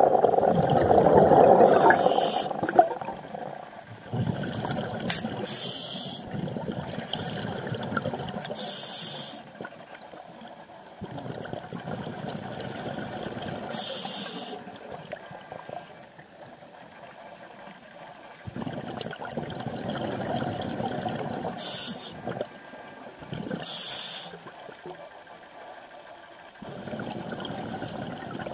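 Scuba diver breathing through a regulator underwater: a short hiss of the demand valve on each inhale, about six times, alternating with longer bubbling gurgles of exhaled air.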